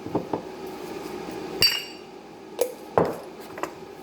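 Measuring spoons tapping and clinking against a mixing bowl and spice containers: about six short, sharp knocks, one near the middle with a bright ringing clink.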